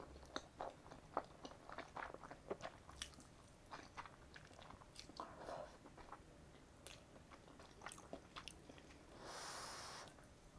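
Quiet close-miked eating sounds of sticky, sauced jjajang ramyeon noodles: a long run of small wet clicks and smacks, then a short slurp of noodles near the end.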